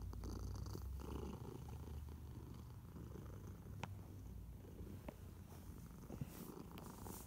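Domestic cat purring steadily, with a few faint ticks.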